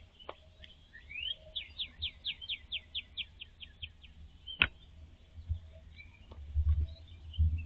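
A small songbird singing a trill of about fifteen quick repeated notes, roughly six a second, among scattered chirps from other birds. There are two sharp clicks, and a low rumble near the end.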